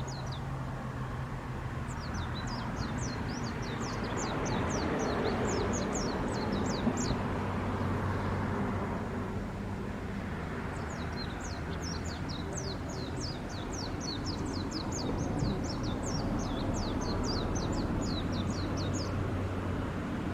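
Steady low hum and rumble of ship engines in the harbour. Over it, a bird's rapid, high-pitched chirping comes in two long runs, one a couple of seconds in and a longer one through the second half.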